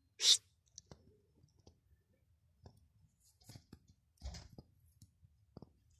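Scattered small clicks and two short rustling bursts, the louder about a third of a second in and another just past four seconds.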